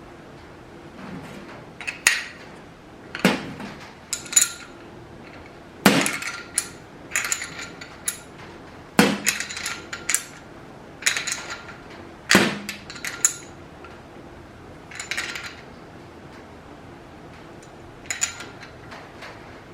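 Metal tools and parts clinking and knocking against each other and the bench, a dozen or so irregular sharp, ringing knocks with pauses between: wrenches and an air fitting being handled while the fitting is put on a pneumatic cut-off tool.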